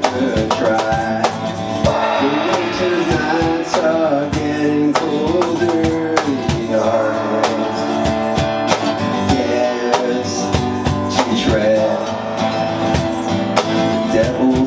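Acoustic guitar strummed with a man singing along, and djembe hand-drum beats keeping time.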